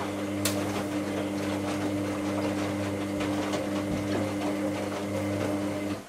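Hoover AC158 Classica 1000 washing machine running, its motor driving the drum at a steady pitch, with rapid ticking and one sharp click about half a second in. The motor sound cuts off suddenly at the very end.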